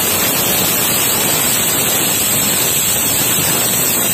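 Stovetop pressure cooker whistling: steam blasts out past the weighted whistle on the lid in a loud, steady hiss with a shrill high edge. It is one of the whistles that show the cooker is at full pressure.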